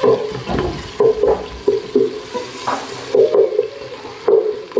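A spoon stirring onion, green chillies and tomato frying in oil for a dal tadka, knocking and scraping against the pot in short, uneven strokes about twice a second.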